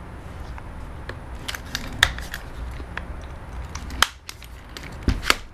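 Clicks and knocks of an airsoft rifle's adjustable stock being handled and its cheek rest worked: scattered sharp clicks, a quick cluster about two seconds in and a few more near the end.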